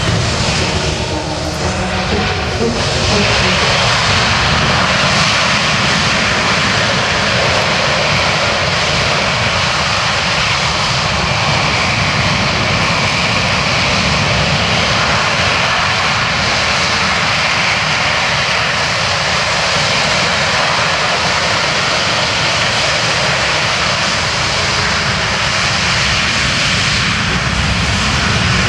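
The four turbofan engines of a C-17 Globemaster III, a loud, steady jet noise as the aircraft lands and rolls out. It builds over the first few seconds and then holds.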